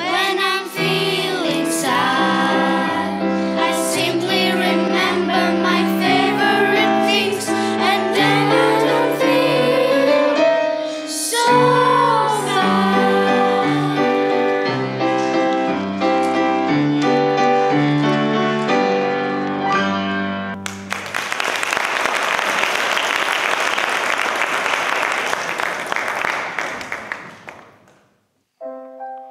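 Children's choir singing with piano accompaniment, the song ending about two-thirds of the way through. Audience applause follows and fades out near the end.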